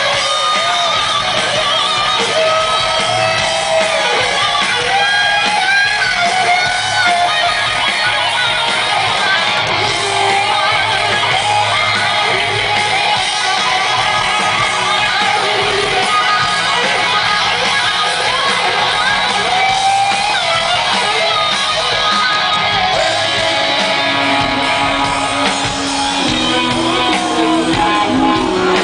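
Electric guitar solo played live at a rock concert, loud, full of bent and wavering notes.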